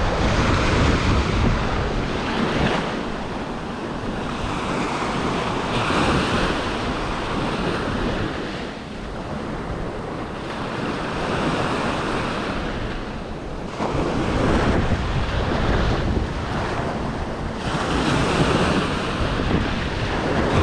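Small surf breaking and washing up onto the sand, swelling and easing every few seconds, with wind buffeting the microphone in a low rumble.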